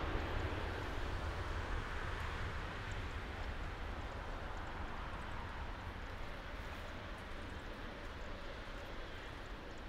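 Jet engines of a Boeing 777 freighter running at taxi power: a steady rumbling hiss that slowly fades as the aircraft moves along the taxiway.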